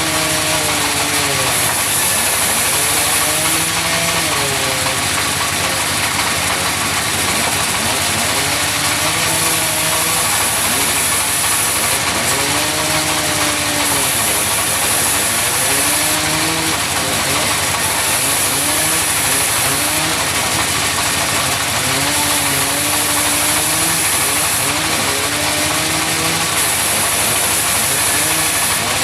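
Engine-driven sawmill running continuously while a log is sawn. The engine's pitch repeatedly dips and recovers as the blade takes load, over a steady high hiss of cutting.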